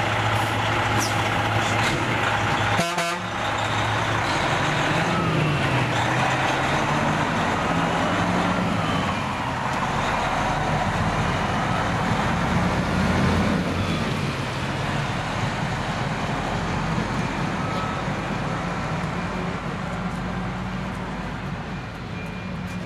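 Freightliner tractor unit's diesel engine pulling away and driving off, the engine note rising and falling several times as it accelerates through the gears.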